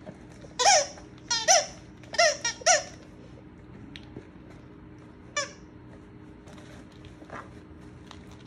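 Squeaker in a fabric turtle chew toy squeaking as a Great Dane chews it: a quick run of about six squeaks in the first three seconds, one more a couple of seconds later, and a faint one near the end.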